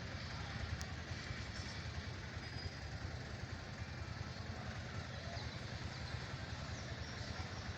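Steady low outdoor rumble with a hiss above it, flickering slightly in level throughout.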